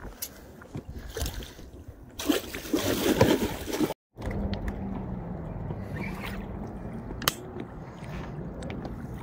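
Water splashing beside a boat about two seconds in, as a freshly unhooked pike is let back into the river. After a short break in the sound comes a steady low hum, with a single sharp click near the end.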